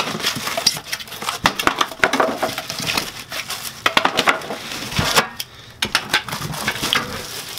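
Cardboard packing inserts being pulled out of a shipping box and tossed aside: irregular scraping and rustling of cardboard with scattered knocks.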